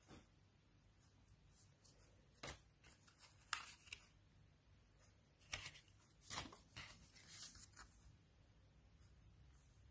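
Faint paper handling: a few short crisp rustles and taps as printed paper sheets and cards are handled and turned over, starting a couple of seconds in, with a brief stretch of rustling near the end.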